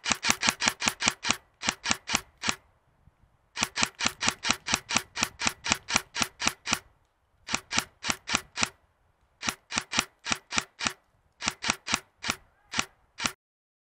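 Airsoft rifle firing in quick strings of sharp shots, about six a second, in five runs broken by short pauses.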